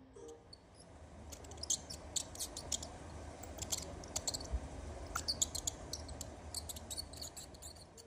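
Mice squeaking: clusters of short, very high-pitched squeaks, starting about a second in and going on until near the end, over a low steady hum.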